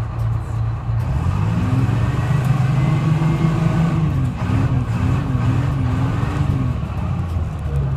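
Detroit Diesel 6V71 two-stroke V6 diesel of a GMC New Look bus idling, then revving up as the bus pulls away. Its pitch climbs, wavers up and down several times, and falls back to a low drone near the end.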